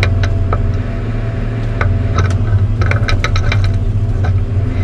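Log loader's engine running steadily with a low drone, with scattered knocks and rattles from the machine working, thickest around the middle.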